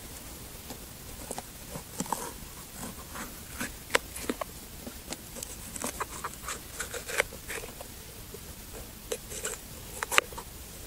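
Green bell pepper being cut up with a knife on a cutting board: irregular crisp crunches and snaps as the blade goes through the flesh, with a few sharper ones about four seconds in and near the end.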